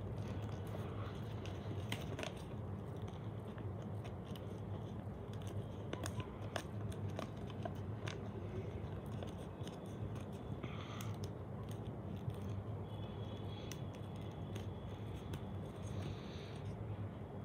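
Origami paper crinkling and rustling in faint, scattered crackles as fingers press and adjust the folds of a paper model, over a steady low hum.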